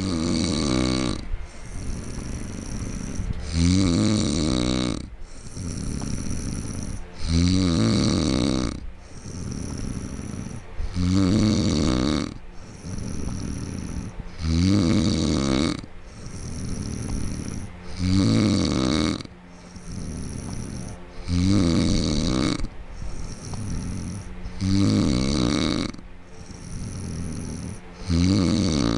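A man snoring loudly in his sleep after a night of drinking beer. A loud pitched snore comes about every three and a half seconds, nine in all, with a softer breath between each.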